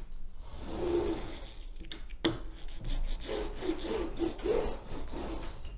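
Small rubber roller rolled back and forth over the resin drills of a diamond painting, a rasping rub in repeated strokes as it presses the drills down into the canvas. One sharp click about two seconds in.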